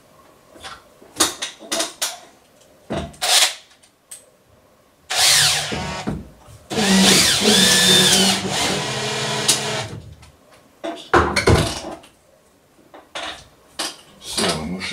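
Makita cordless drill driving into a driftwood root: a short run about five seconds in, then a longer run of about three seconds, its motor pitch rising and falling with the trigger. Clicks and knocks of parts and wood being handled on the workbench before and after.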